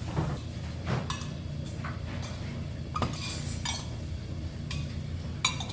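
Cutlery clinking against dishes in irregular light knocks, a few of them ringing briefly, over a steady low restaurant hum.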